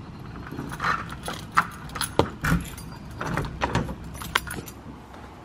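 A ring of keys jangling as a key is turned in a door's deadbolt to lock it, with a run of sharp clicks and knocks, the loudest about one and a half seconds in.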